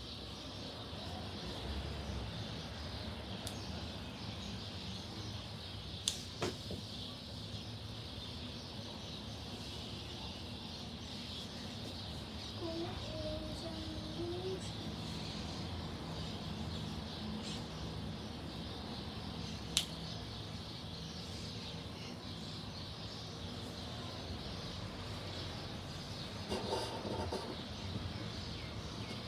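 Steady outdoor background hiss and hum, broken by a couple of sharp clicks and a brief short tone about halfway through.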